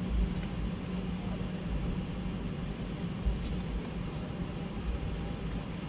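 Cabin noise of a Boeing 717 taxiing: a steady hum over a low rumble, with a few low thumps, the strongest about three seconds in.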